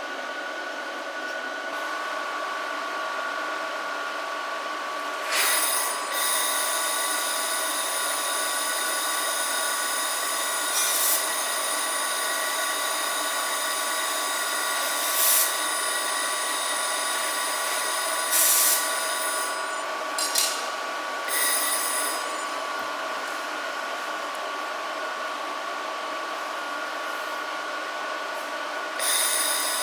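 Handheld fibre laser welder (Pokkels P-Weld 1500) working on 2 mm aluminium: a steady machine whine with a high hiss that sets in about five seconds in, broken by several short louder bursts.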